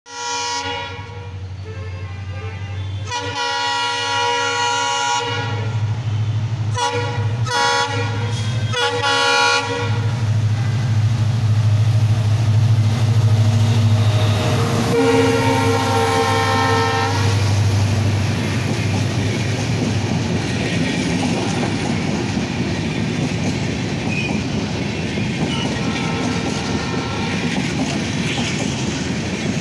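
Indian Railways WDP4D diesel locomotive approaching and passing, its engine giving a deep steady hum. Its horn sounds a short blast, a longer blast, three short toots, and another blast about fifteen seconds in. After the locomotive goes by, the hum fades and the coaches roll past with clattering wheels.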